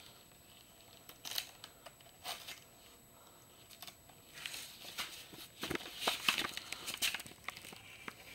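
Scattered light clicks, taps and rustles from footsteps and hands handling things in a small cluttered room, coming more often in the second half.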